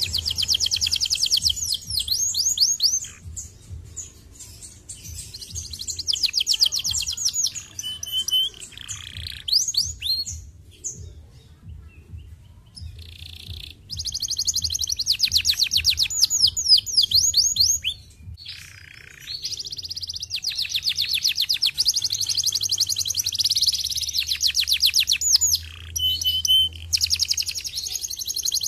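Domestic canary singing in long phrases of fast, rapid-fire trills and rolls, with short pauses between phrases.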